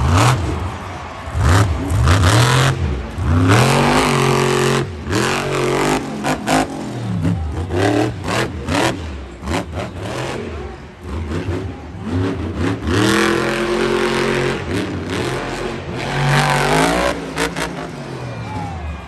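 Monster truck engine revving hard and dropping back again and again, with sharp bangs in between.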